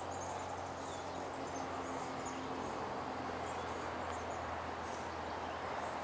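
Woodland ambience: a steady, even hiss with faint, scattered high chirps.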